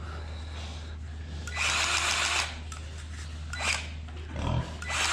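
Milwaukee cordless grease gun's motor running in two short bursts of under a second each, with a brief blip between, pumping grease into a fitting.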